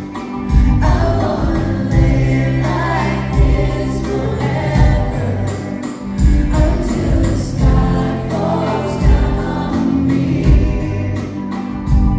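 Live pop band performance: a male lead singer over keyboards and a steady drum beat, heard through a phone in a concert hall.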